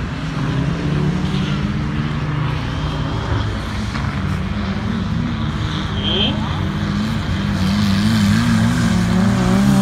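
Engines of tuned racing tractors running on a dirt speedway track. A steady low engine note runs throughout, with another engine rising in pitch about six seconds in and the note wavering up and down as they rev near the end.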